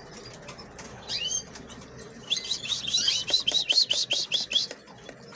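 Canaries chirping: one chirp about a second in, then a quick run of short, repeated high chirps, about five a second, lasting a couple of seconds.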